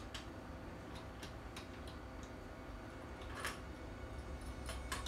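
Irregular light clicks and taps of small firearm parts being handled and fitted during a repair, over a low steady hum.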